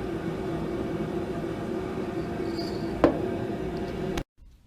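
A machine running with a steady drone and hum, with one sharp click about three seconds in. It cuts off abruptly about four seconds in, leaving faint room sound.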